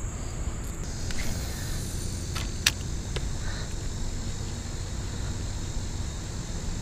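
A few short sharp clicks of a spinning rod and reel being handled and cast, the loudest about two and a half seconds in. Beneath them run a steady low rumble and a constant high insect drone.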